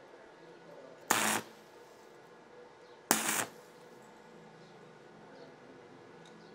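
Stick arc welder laying two short tack welds on the corner joint of two metal strips: two brief bursts of arc crackle, about a second in and about three seconds in, each lasting well under half a second.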